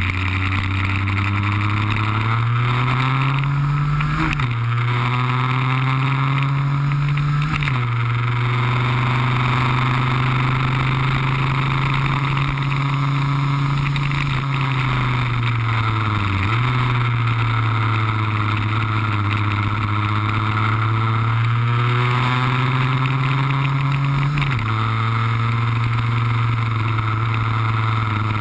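Lambretta cut-down's RB20-kitted two-stroke engine running hard on a lap, heard from on board: its pitch climbs as it pulls, drops suddenly at gear changes about four and eight seconds in, sags as it slows around the middle, then climbs again to another shift near the end. A steady rush of wind noise on the microphone runs over it.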